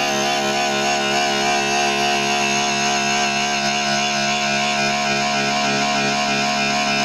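A 3 kW three-phase AC motor running with no load. It gives a steady whine of several tones layered together, wavering slightly in pitch and holding at the same level throughout.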